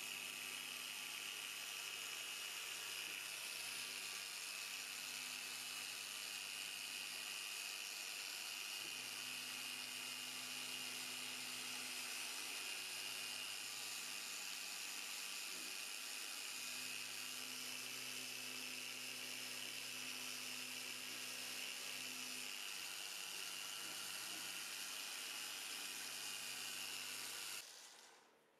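Small electric polisher with a foam pad running steadily against a car headlight lens, a constant high whine over a low motor hum, switched off and spinning down near the end.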